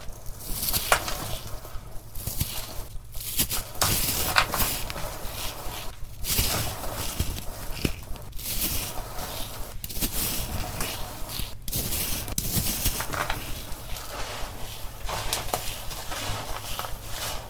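Dry, crumbly blocks being cut and crushed by hand, a dense crunching and crackling that comes in repeated strokes with short pauses between.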